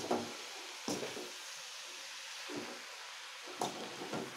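Metal ladle stirring and turning moringa (drumstick) leaves in a metal kadai, with a few short knocks and scrapes of the ladle against the pan over a steady faint sizzle of the leaves frying.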